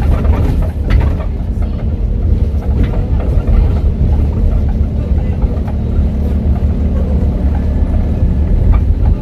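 Diesel engine of an ADL Enviro 400H double-decker bus, converted from hybrid drive, running with a loud, steady low rumble.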